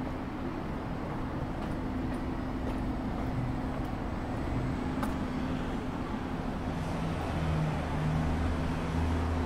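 City street traffic: motor vehicle engines running close by over a steady low hum, with a deeper engine rumble growing louder over the last few seconds.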